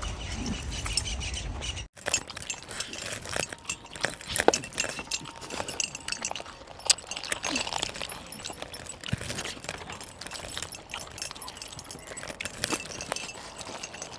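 Close-up eating sounds: hands tearing and handling cooked mutton on a metal tray, with scattered clicks and light metallic clinks as rings and bracelets knock against the tray. A low rumble stops abruptly about two seconds in.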